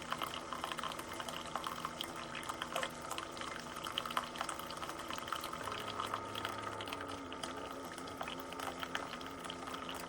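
Keurig K-Express single-serve coffee maker brewing, hot water streaming and bubbling into a cup with a steady hiss and fine crackle. Soft background music plays under it.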